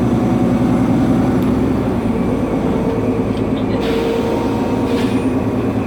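Nova Bus LFS city bus running on the road, heard from inside the bus: a steady low engine drone made of several tones. A higher steady whine comes in about two seconds in and stops after about five seconds, with two short hisses in between.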